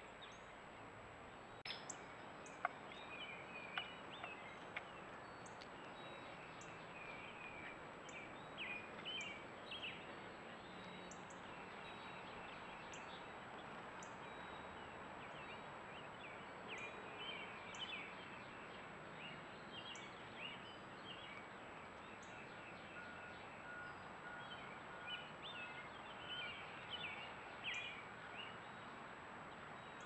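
Wild songbirds chirping and calling on and off over a steady background hiss from a trail camera's microphone. A few sharp clicks come around two to four seconds in.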